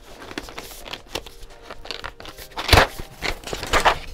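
Cardboard keycap box being handled and opened by hand: rubbing and scraping of card, with a few sharper knocks and scrapes in the last second and a half, the loudest about two and three-quarter seconds in.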